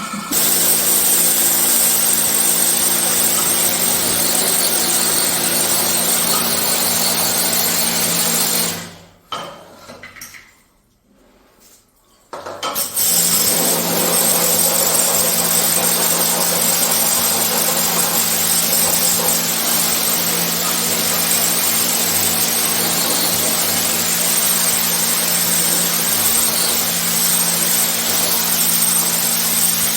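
High-pressure washer running: a steady motor hum under the hiss of the water jet spraying the air conditioner's blower fan clean. It cuts out for about three seconds about nine seconds in, then starts again.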